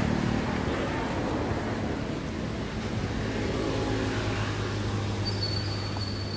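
Low, steady hum of a motor vehicle engine that slowly fades, with a thin high whistle joining near the end.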